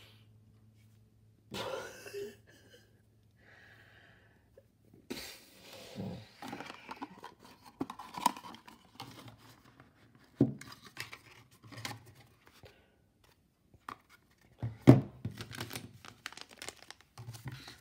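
Hands handling small cardboard product boxes and a glass candle jar on a tabletop: rustling and scraping of packaging with many small clicks and taps, and one louder thump about fifteen seconds in as a box is set down.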